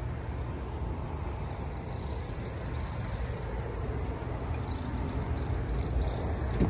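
Outdoor ambience: a steady low rumble and a steady high hiss, with a bird giving a series of short, faint chirps from about two seconds in until about five and a half seconds.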